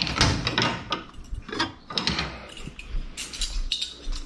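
Metal kitchen utensils clacking and rattling as they are taken down from a hanging tool rack and handled at the stove. The sound is an irregular string of sharp clicks and knocks.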